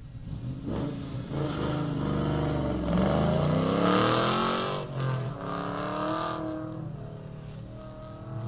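Classic muscle car's engine running hard through an autocross course, its revs climbing and falling several times as it accelerates and lifts between the cones. It is loudest about four seconds in, dips briefly, revs up once more, then fades as the car moves away.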